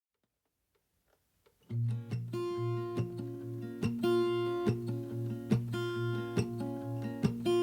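Acoustic guitar strumming chords in a steady rhythm: the instrumental intro of a song. It starts suddenly just under two seconds in, after near silence.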